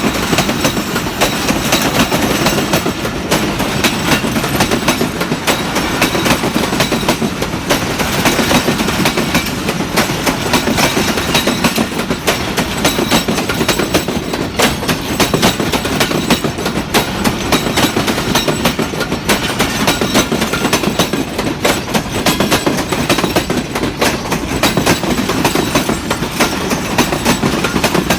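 Railway carriage running along the track: a steady, loud rumble with rapid, uneven clatter and knocks of the wheels over the rails.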